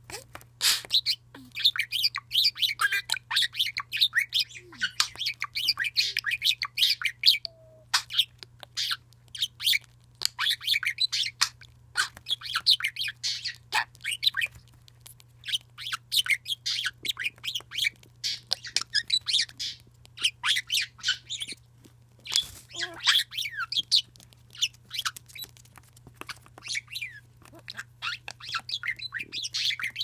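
Budgerigar chattering: long runs of rapid, high chirps and warbles, broken by short pauses every few seconds.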